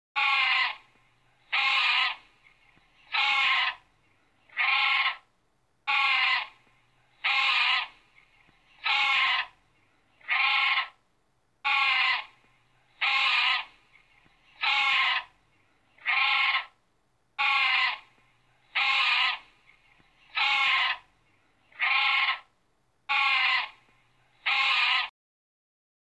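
A grebe calling loudly, about seventeen harsh calls of about half a second each, repeated evenly every second and a half, each with a wavering, rippling pitch. The calls stop near the end.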